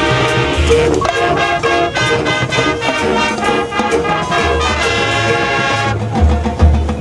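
Marching band playing live: the brass section sounds full held and repeated chords over drums, and near the end the bass drums come forward with a run of heavy hits.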